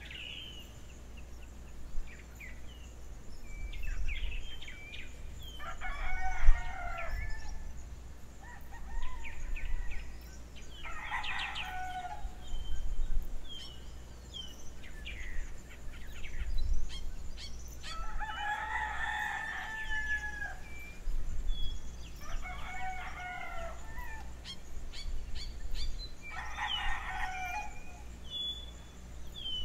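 Rooster crowing about five times, each crow a second or two long and several seconds apart, with small birds chirping in between.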